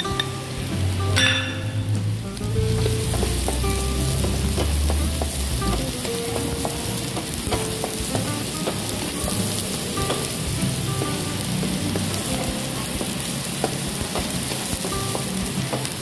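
Chopped onions going into hot oil and garlic in a nonstick wok and sizzling steadily, with a wooden spatula scraping and tapping against the pan as they are stirred.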